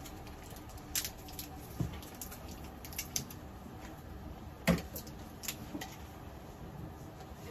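Scattered light clicks and knocks over a low steady room hum, with one louder knock about two-thirds of the way through.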